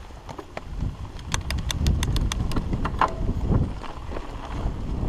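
Mountain bike rolling downhill over bumpy grass, heard from a helmet camera: a low rumble from the tyres and wind on the microphone that grows louder as it picks up speed, with a quick run of sharp rattles and clicks from the bike about a second in.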